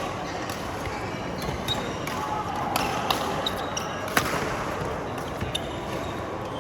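Badminton rally: several sharp racket strikes on the shuttlecock at irregular intervals, over background chatter.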